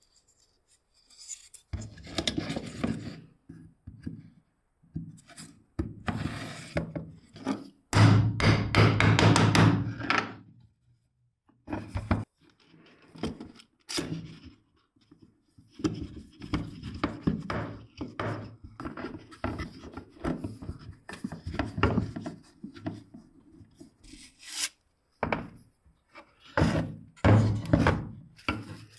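Plywood parts rubbing, scraping and knocking together as they are fitted during a glue-up, and screw bar clamps being slid on and tightened. The rubbing comes in stop-start bouts, with a few sharp clicks.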